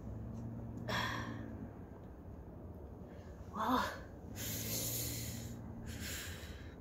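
A trapped, aggressive cat hissing several times: a short hiss about a second in, a sharp one past halfway, then a longer hiss near the end.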